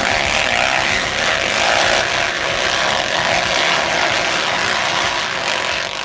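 Engines of several off-road dirt bikes racing together at high revs, a loud, steady, dense drone.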